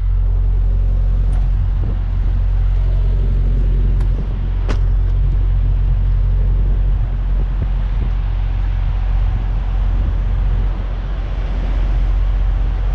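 Semi-truck diesel engine idling, a steady low rumble, with two sharp clicks about four seconds in.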